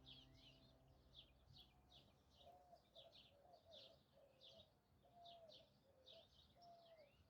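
Faint birdsong: short high chirps repeating about twice a second, with a softer, lower phrase repeating underneath.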